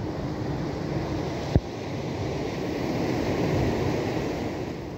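Sea surf washing against shore rocks, swelling to a peak about three and a half seconds in and then easing off. A single sharp click about a second and a half in.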